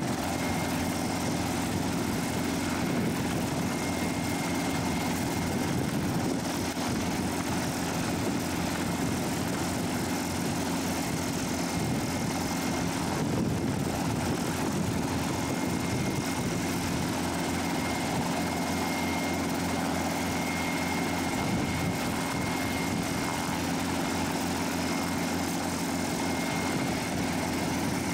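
Small helicopter idling on the ground with its rotor turning: a steady engine and rotor noise with a thin, high whine running through it.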